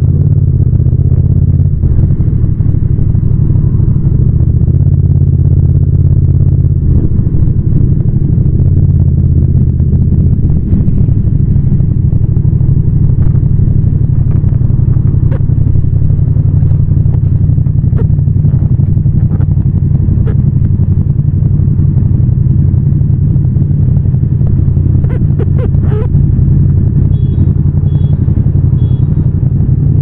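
Yamaha MT-07's 689 cc parallel-twin engine running at a steady cruise, a low, even drone with little change in revs. Near the end come three short high-pitched beeps.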